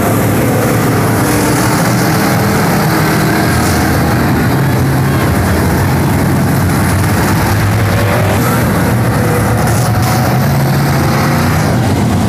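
Race car engines running loud and steady, the pitch shifting a little as the cars speed up and slow down.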